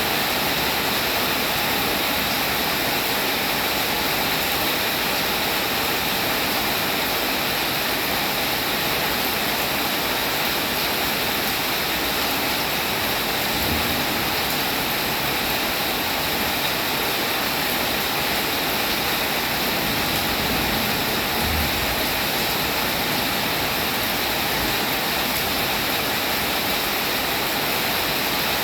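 Steady heavy rainfall, a dense even hiss of many drops with no let-up.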